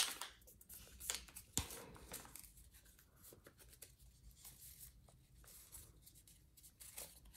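A sheet of paper rustling and crackling as it is folded in half and creased by hand. The sharpest crackle comes right at the start, with a few more in the first two seconds and fainter rustles after.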